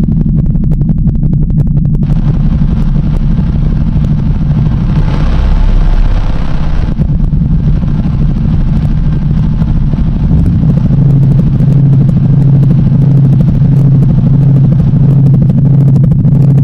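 Industrial noise music: a loud, dense low drone that sounds like an engine rumble, with crackling near the start and the end. About eleven seconds in it settles into a steadier low hum that pulses evenly.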